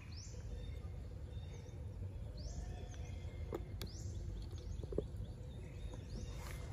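Outdoor ambience: a steady low rumble with a few short high chirps every couple of seconds and a few faint taps in between.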